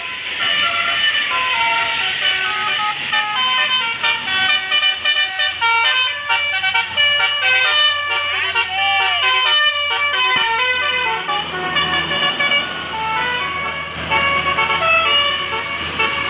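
A bus's Basuri 'telolet' musical air horn playing a fast tune of short stepped notes, several a second, with the bus's engine running underneath.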